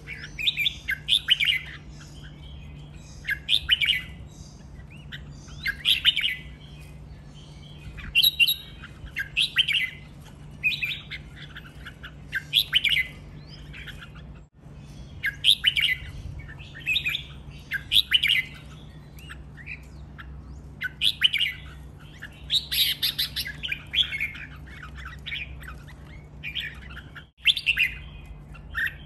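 Red-whiskered bulbul singing: short, quick, bright chirpy phrases, one every second or two, over a faint steady low hum.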